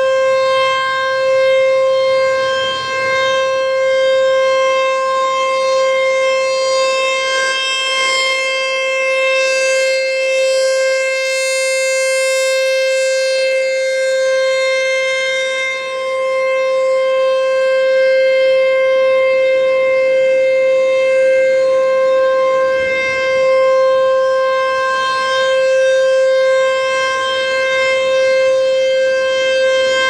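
American Signal T-135 rotating warning siren sounding its alert signal: one steady, unwavering tone with strong overtones, swelling and fading slowly as the horn turns toward and away.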